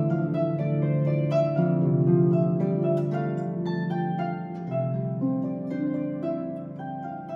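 Celtic harp played solo: a tune of plucked notes left to ring over one another above low bass notes, growing a little softer toward the end.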